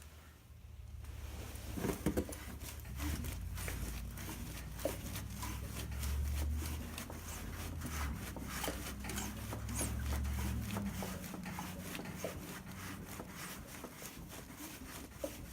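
Ratchet wrench clicking in quick runs as the LQ4 V8's crankshaft is turned over by hand. A low hum sits under it from about two seconds in until about eleven seconds.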